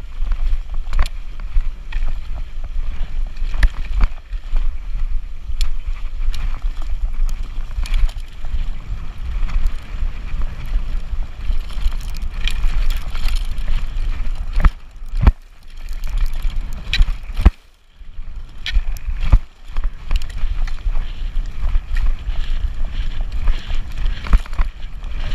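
Wind buffeting the microphone of an e-bike riding fast down a forest trail, with the bike rattling and knocking over bumps in the rough ground. There is a brief lull about two-thirds through, with louder knocks around it.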